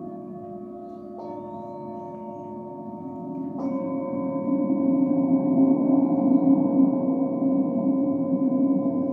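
Singing bowls, a small hand-held metal bowl and frosted crystal bowls, ringing in long overlapping steady tones. A fresh strike comes about a second in and another at about three and a half seconds, and a low hum swells louder through the second half.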